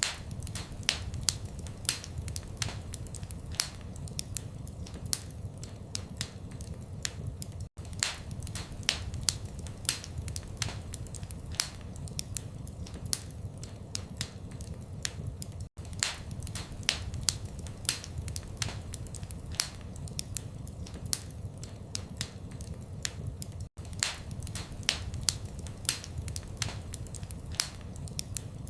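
Wood fire crackling: sharp pops and snaps several times a second over a steady low rumble, with a momentary gap in the sound about every eight seconds.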